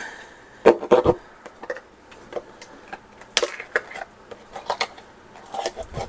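Scattered clicks and knocks of a plastic tub of Clear Jel being worked open and handled.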